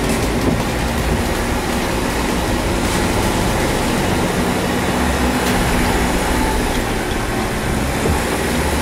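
Off-road vehicle engine running steadily, with a constant rushing noise over it.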